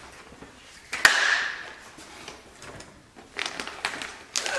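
Packing materials being handled on a table: a sudden loud rustle of paper and cardboard about a second in, then plastic wrapping crinkling with a few light knocks near the end as the wrapped painting is lifted.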